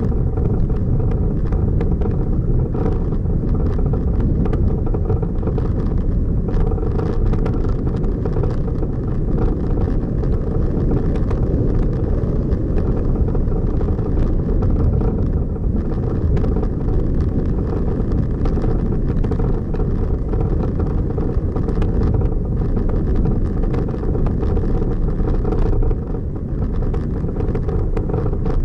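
Motor vehicle driving along a road: a steady, loud low rumble of engine and tyres, with light clicks and rattles throughout.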